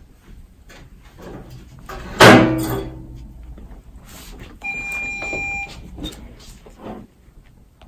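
A loud knock or thump with a short ringing tail about two seconds in, then a steady electronic beep lasting about a second.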